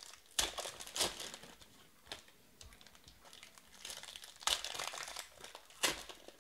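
Foil wrappers of Panini Prizm baseball card packs crinkling as hands rip them open and pull the cards out, in several sharp crinkles with quieter handling between.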